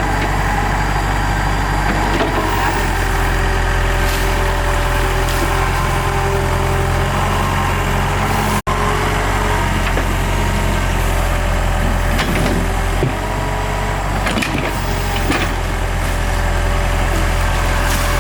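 Large excavator's diesel engine running steadily, with whining tones above the engine hum and a few knocks. The sound cuts out for an instant about halfway through.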